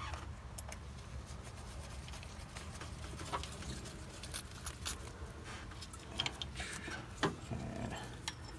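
Light scattered clicks and rubbing of metal and nitrile gloves as a water pump pulley is handled and seated onto the pump hub, over a low steady hum.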